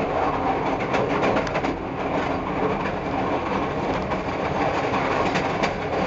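Moving passenger train heard from inside its rear car: the steady rumble of wheels on rails, with a faint steady hum under it. A few sharp clicks come from the wheels over rail joints, between one and two seconds in and again past five seconds.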